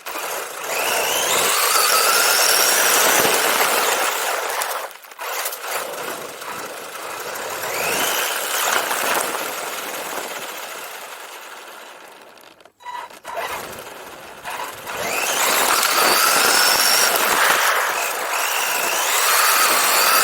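WLToys 144001 RC car's electric motor and gear drive whining, the pitch rising each time it accelerates, over a steady rush of tyre and road noise. The sound eases off and nearly drops out about thirteen seconds in, then picks up again with more rising whines.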